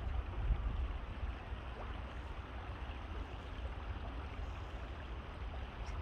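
Stream water running steadily, under a constant low rumble.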